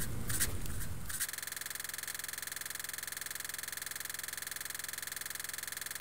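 Fast, sped-up hand sounds, palms rubbing together with sharp taps, cut off abruptly a little over a second in. A steady, rapidly pulsing buzz follows for the rest.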